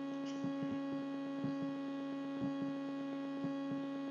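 Steady electrical hum with a stack of fixed tones, strongest in the low-middle range. Faint soft clicks come now and then.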